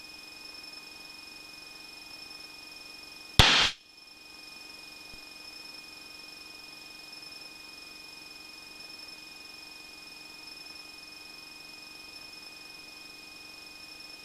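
Low steady hiss of an aircraft intercom and radio audio feed, with a thin, steady high electronic whine running through it. A few seconds in, a short loud burst of static cuts in and stops.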